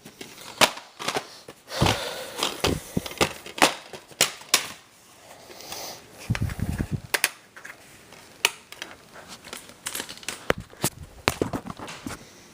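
Handling noise: irregular sharp clicks and knocks, with a heavier low thump about six seconds in.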